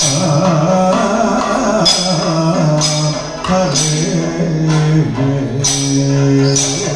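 Kathakali music: a male voice sings a gliding melody line, with bell-metal gong and small hand cymbals struck about once a second to keep the rhythm.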